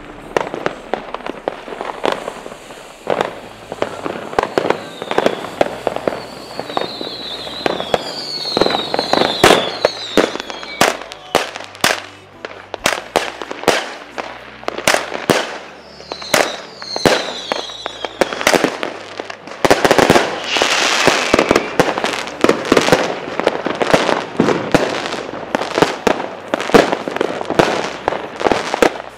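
Fireworks going off in rapid succession: many sharp bangs and crackles. Short whistling tones falling in pitch come about a third of the way in and again around the middle, and a dense, loud stretch of crackling comes about two-thirds through.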